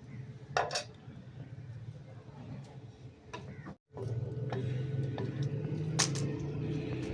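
Kitchenware clinking: a few sharp metal clinks, the loudest about six seconds in, over a steady low hum that starts after a brief cut in the sound about four seconds in.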